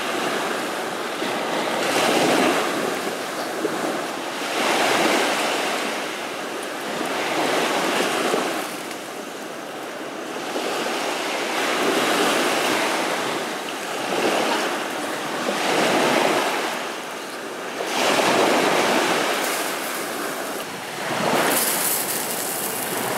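Rushing noise that swells and fades about every two to three seconds.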